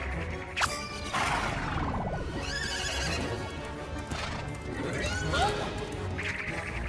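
A cartoon zebra whinnying like a horse, one wavering call about two and a half seconds in, over background music with a few sliding sound effects.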